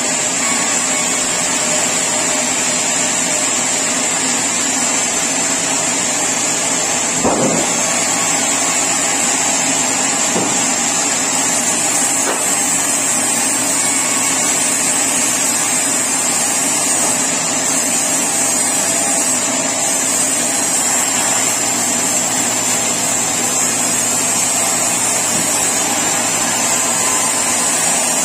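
Sawmill saw running steadily through mahogany timber, a continuous machine noise with a steady high whine, and a single knock about seven seconds in.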